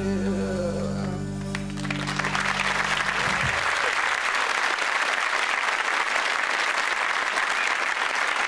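A band's last chord rings out on acoustic guitar and keyboard and stops about three and a half seconds in. Audience applause starts over it about two seconds in and carries on steadily to the end.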